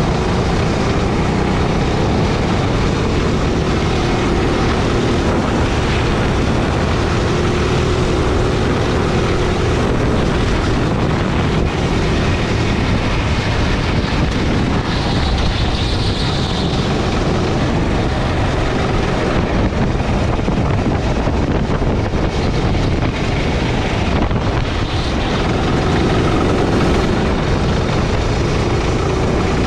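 A Sodi gasoline go-kart's engine running at speed through a lap, heard from the driver's seat, its pitch shifting a little through corners and straights, with wind noise on the microphone.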